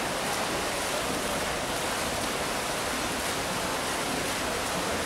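Several swimmers splashing as they race freestyle in an indoor pool, heard as a steady wash of water noise.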